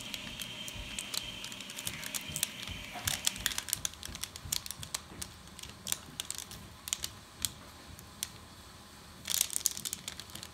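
Thin stainless steel heat-treating foil crinkling and clicking as its edge is folded over by hand to seal the pocket, in irregular sharp ticks with a denser burst of crinkling near the end.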